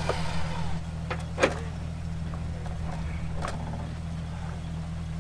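Vehicle engine idling steadily, with a few sharp clicks and knocks on top, the loudest about a second and a half in.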